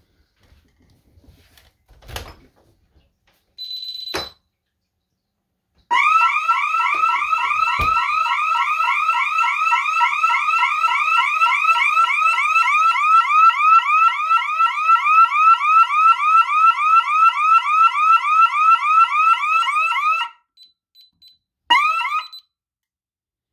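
A thump and a short high beep, then a DSC security system's alarm siren going off during an alarm test, with a fast, repeating rising whoop for about fourteen seconds. It cuts off suddenly when the system is disarmed, and a few faint beeps and one brief last siren burst follow.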